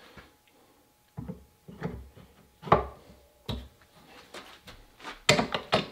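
Hand-sanding with 100-grit paper on the metal fittings inlet into a wooden shotgun buttstock held in a vise, bringing the metal flush with the wood. Short, uneven scrubbing strokes come in a quick flurry near the end, with one louder knock about halfway through.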